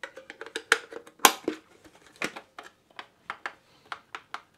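Irregular plastic clicks and taps from a hobby RC transmitter being handled and turned over, with the loudest click about a second in.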